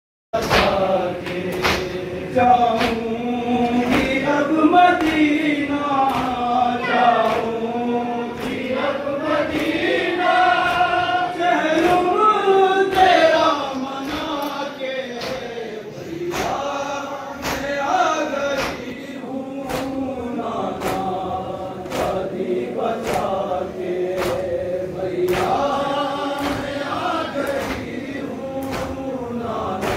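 A noha, the Shia mourning lament, chanted by male voices together. A sharp slap falls a little more than once a second, the rhythmic chest-beating of matam that keeps the beat.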